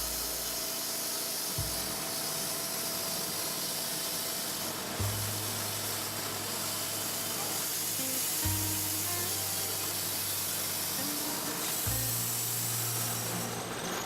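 Background music with low bass notes that change every few seconds, over a steady hiss.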